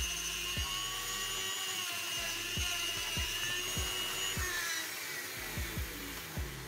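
Dremel rotary tool with a sanding drum running at speed: a steady high whine, one of its tones dropping out a little over halfway through.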